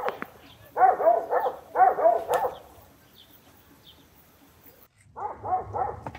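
A dog barking in short runs of quick barks, twice in the first few seconds and again about five seconds in.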